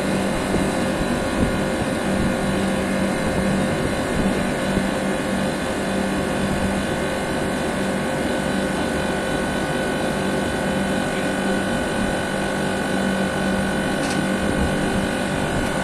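Air-conditioner outdoor condenser units running: a steady mechanical hum and fan rush with a few steady whining tones on top.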